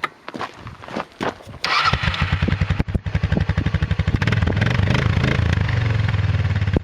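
Arctic Cat 454 engine cranked for about a second and a half, catching and starting just under two seconds in, then running steadily with rapid, even firing pulses. It is a warm start: the engine had already been run.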